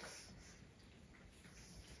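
Near silence, with faint snuffling from pug puppies.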